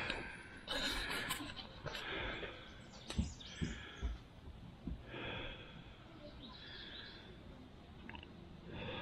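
A person breathing hard, with repeated audible breaths about every second or so.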